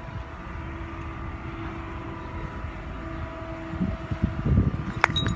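A steady distant machine hum over low wind rumble on the microphone, with a sharp click about five seconds in.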